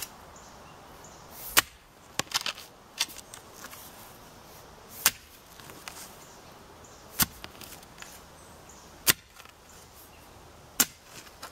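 Sharp strikes of a spading fork's steel tines being driven into the soil to dig, one about every two seconds, with a quick cluster of smaller knocks a couple of seconds in.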